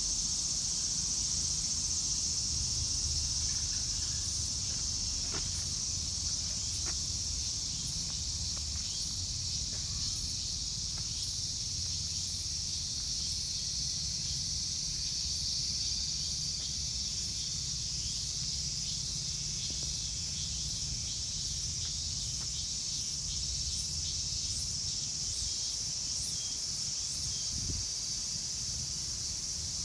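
A steady high-pitched insect chorus that does not let up, with a low rumble underneath.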